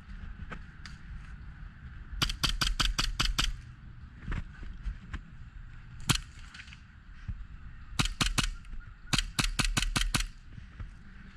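Airsoft guns firing: a quick string of about nine shots a couple of seconds in, a single shot in the middle, and two more quick strings of shots near the end.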